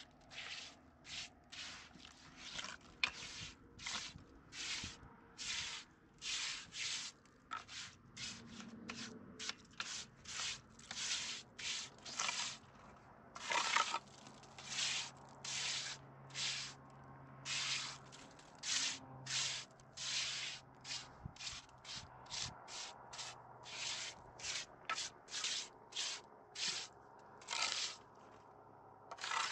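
Repeated short rubbing strokes, about one and a half a second and unevenly spaced, like something being scrubbed or rubbed by hand.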